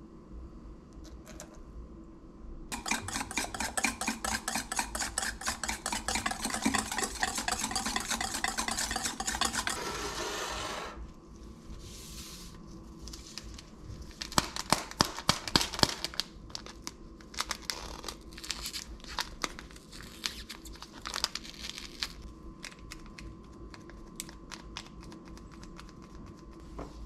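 Wire whisk beating eggs in a stainless steel bowl, a fast rhythmic clatter for about eight seconds that stops abruptly. Then a paper sachet being crinkled and torn open, with a short run of sharp clicks and lighter rustling.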